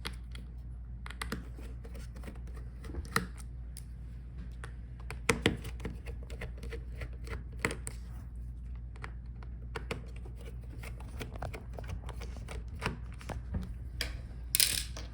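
Scattered small clicks, taps and scrapes of a Phillips screwdriver working on a laptop's metal hinge screws and the parts being handled, over a steady low hum, with one sharper click near the end.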